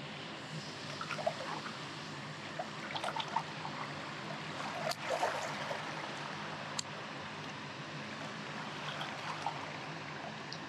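River water flowing and trickling steadily, with scattered light clicks and a brief louder rustle about five seconds in.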